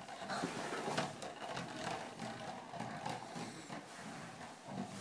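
A gerbil's plastic exercise ball rolling across a hardwood floor, rolling continuously with a fast uneven flutter. There is one sharp knock about a second in.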